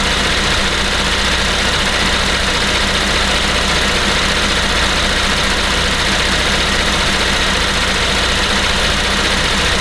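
2012 Cadillac SRX's 3.6-litre direct-injection V6 idling steadily, heard close up at the open engine bay, a few minutes into warm-up after a cold start.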